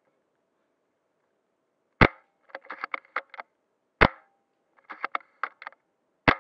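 Three sharp airsoft gun shots about two seconds apart, starting about two seconds in; after each of the first two comes a quick string of five or six smaller clicks.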